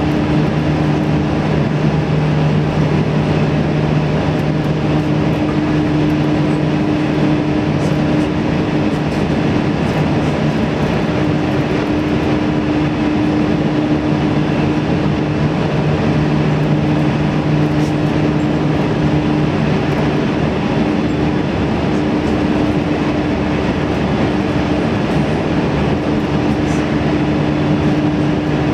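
Series 313-1100 electric train running at steady speed, heard inside the driver's cab: continuous wheel-on-rail running noise with a steady low hum.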